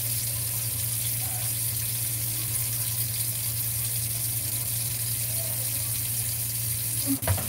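Water running steadily from a tap, with a single sharp knock about seven seconds in.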